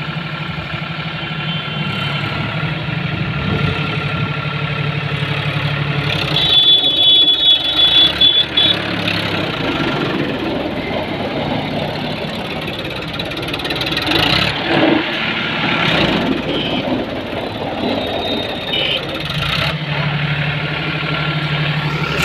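Powertrac tractor's diesel engine running at a steady idle, then louder and less even while the tractor drives about, with a high squeal about seven seconds in. It settles back to a steady idle near the end.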